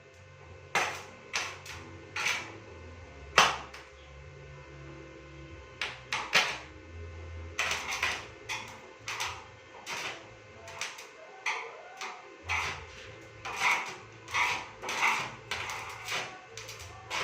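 Repeated sharp knocks or taps, irregularly spaced at about one or two a second, over a faint low hum.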